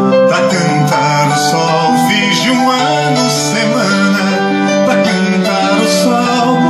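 Instrumental music led by plucked strings like a guitar: a wordless break in the song for a Gypsy dance.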